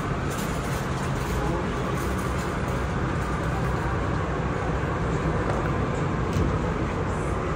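Steady background din of a busy public space, with faint, indistinct voices mixed into a constant rumble.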